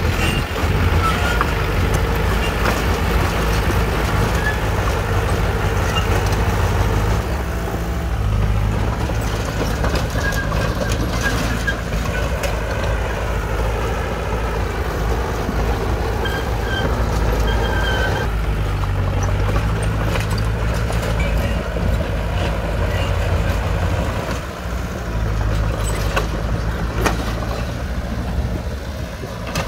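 Shantui DH17C2 bulldozer's diesel engine running steadily under load while pushing rock fill. There are occasional short high squeaks and knocks from the machine.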